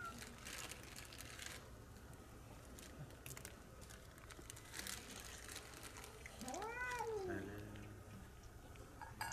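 A cat meows once, one long call rising then falling in pitch, about six and a half seconds in, begging for food. Light rustling of a plastic food bag comes and goes before it.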